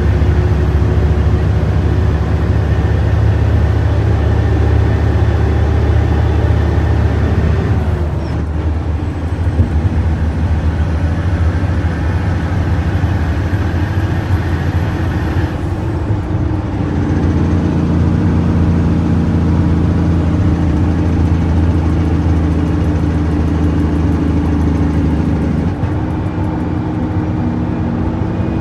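Heavy truck's diesel engine running under way, heard from inside the cab. The engine note drops and resettles three times, about 8, 16 and 26 seconds in, like gear changes, and a faint high whine falls with it at the first two.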